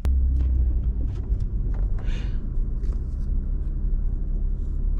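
Steady low rumble of a car driving, with a few faint light clicks and a short hiss about two seconds in.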